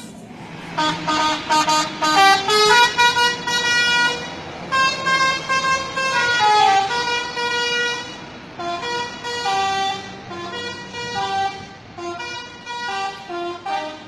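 Multi-trumpet 'telolet' bus horn playing a tune: held horn notes stepping up and down in pitch, with brief breaks between phrases.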